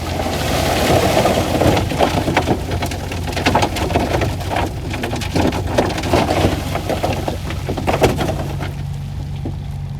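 Heavy earthmoving machine's diesel engine running steadily under a loud rush of soil and stones tumbling and crunching, with many sharp cracks of rock. The rush dies away about eight and a half seconds in, leaving the engine.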